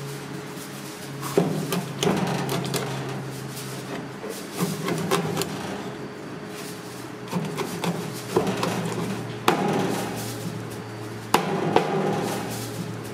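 Cleaver chopping ribbon fish on a plastic cutting board, making an irregular series of sharp knocks as the blade strikes the board. A steady low hum runs underneath.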